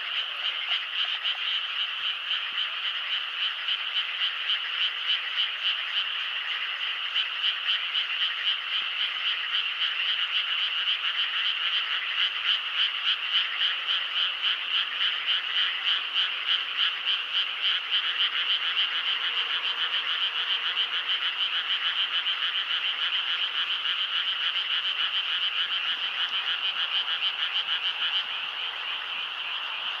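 A dense chorus of many frogs calling at once: a steady, high-pitched croaking whose loudness pulses evenly about twice a second.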